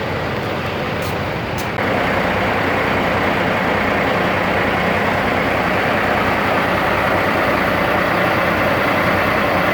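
Semi truck running, a steady engine and road noise, with two short clicks about a second in; the noise steps up louder about two seconds in and then holds steady.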